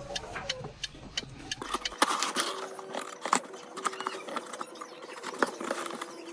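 Plastic and paper packaging being handled and opened, crinkling and rustling with many small sharp clicks and crackles.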